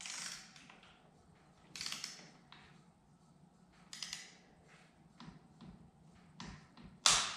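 Click-type torque wrench with a 6 mm hex bit ratcheting on a motorcycle handguard's bar-end bolt as it is tightened toward 21 Nm. Short bursts of ratchet clicks come a second or two apart, closer together in the second half, with a sharper, louder click about seven seconds in.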